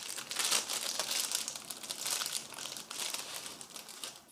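Clear plastic packaging bag crinkling as it is handled and opened by hand, a dense irregular crackle that trails off near the end.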